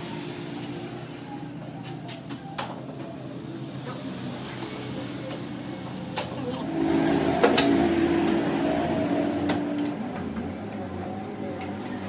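Scattered metal clicks and knocks as a gear shaft is set into a lathe's three-jaw chuck and the chuck is tightened with its key, over a steady low machine hum. A louder steady hum swells for about three seconds past the middle.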